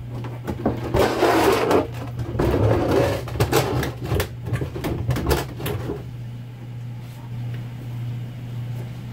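A large plastic water-softener brine tank being pushed and slid back into place, scraping and bumping for about six seconds, then settling. A steady low hum runs underneath.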